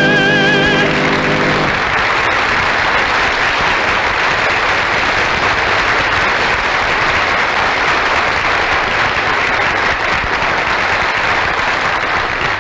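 A held sung note with orchestral accompaniment ends in the first two seconds. Audience applause follows, steady and even throughout.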